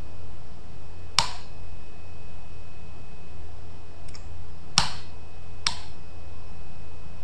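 A few sharp, short computer clicks, spaced irregularly about a second or more apart, over a steady low hum.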